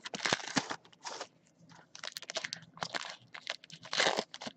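Trading-card pack wrappers being torn open and crumpled by hand: irregular bursts of crinkling and tearing with short pauses between them.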